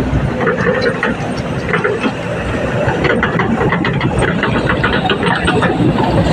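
Excavator engine running steadily, with scattered short clanks or knocks over it.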